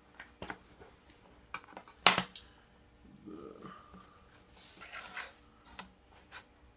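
Light clicks and knocks of a ruler and a candy bar being handled and set down on a wooden tabletop, the loudest a sharp knock about two seconds in, with a brief rustle near five seconds in.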